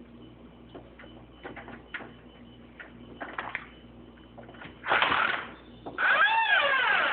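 Faint scattered clicks of a door lock and handle, then a loud rustle about five seconds in and a creaking squeal that rises and falls in pitch near the end as the door swings open.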